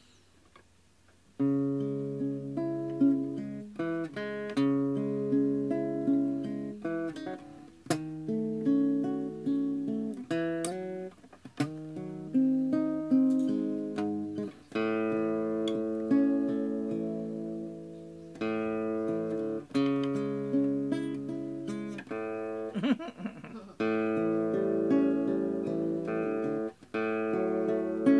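Acoustic guitar played solo: a slow tune of plucked single notes and chords, each ringing and dying away. It begins about a second and a half in.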